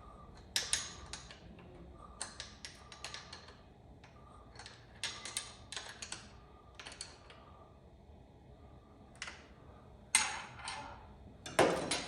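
Clusters of small sharp clicks and taps from hand work on a motorcycle clutch cable and its fittings, with two louder knocks near the end.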